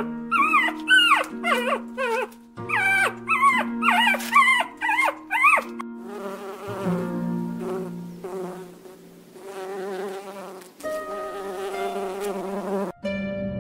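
A puppy whining in a quick run of short, high, rising-and-falling yelps for about the first six seconds, then a honeybee buzzing with a wavering pitch until near the end.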